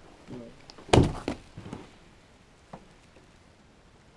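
A single loud thump about a second in, followed by a few smaller knocks and a faint click, as something is handled or set down; a brief murmur of a voice comes just before the thump.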